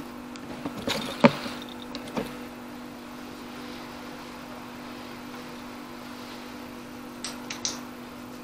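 A steady low hum, with a few knocks and clicks about a second in, the loudest one sharp, and three quick high clicks near the end.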